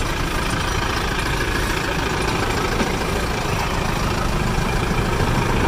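Vehicle engines idling steadily, from a bus and motor scooters stopped close by.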